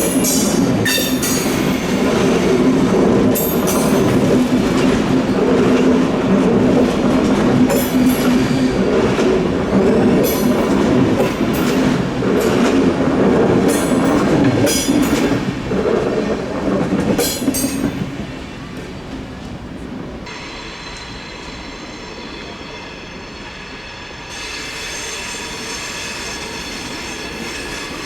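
Train rolling through a tight curve: steady wheel rumble with repeated shrill squeals from the wheel flanges rubbing the rails. About 18 s in the rumble fades, leaving a quieter, steady high whine that grows louder again near the end.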